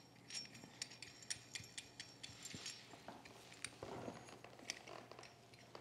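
Faint, scattered light clicks and taps of a metal bench-plane frog and its lateral adjustment lever being handled and turned over in the hands.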